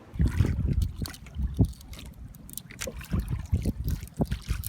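Water splashing and sloshing against a small fishing boat, mixed with irregular knocks and clicks, with a low rumble underneath. It starts suddenly.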